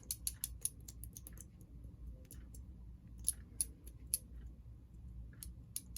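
Light, irregular clicks and taps from small parts of an O-gauge model locomotive motor being handled: a quick run of clicks at first, then a few scattered ones and more near the end.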